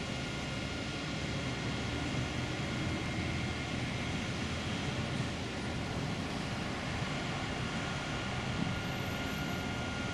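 Steady vehicle noise, a mix of engines running and road traffic, with no distinct events.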